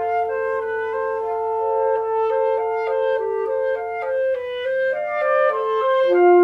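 Chamber music for saxophone, clarinet, flute and piano, led by the woodwinds: a long held note sounds under shorter moving notes and gives way to new notes about four seconds in.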